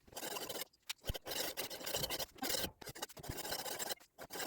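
Steel knife blade scraping across a coarse 300-grit diamond sharpening stone in freehand passes: several long gritty strokes with brief pauses between them.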